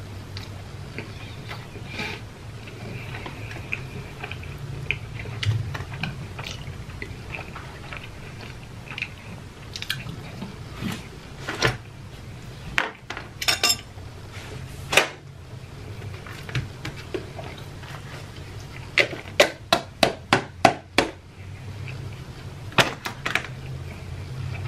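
Close-miked eating sounds: chewing and mouth smacks, mixed with sharp clicks of a fork against plastic takeout containers, including a quick run of about eight clicks near the end. A steady low hum sits underneath.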